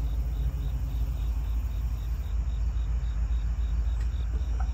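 Crickets chirping steadily, about three chirps a second, over a steady low rumble.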